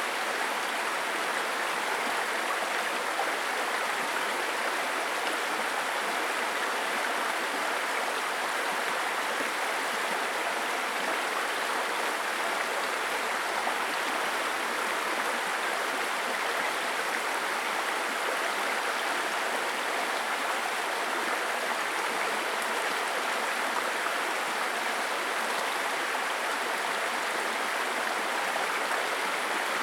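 A babbling brook: water running steadily over stones in a small stream, an even rushing and burbling.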